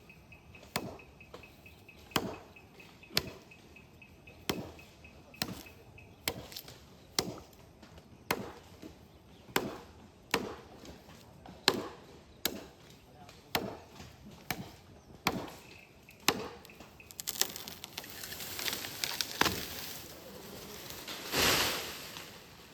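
Steady chopping into silver oak wood with a hand-held blade, one sharp stroke about every second, around sixteen in all. In the last few seconds the strokes give way to a rustling crash of leaves and branches, loudest near the end.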